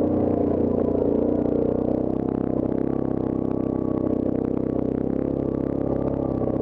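Yamaha Grizzly ATV's single-cylinder four-stroke engine running steadily under way on a rough dirt trail, with light rattling and clattering of the machine over the rocks about two seconds in.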